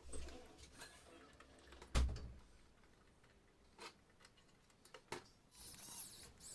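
A few scattered knocks and clicks, with one louder, deeper thump about two seconds in, and a hiss starting near the end.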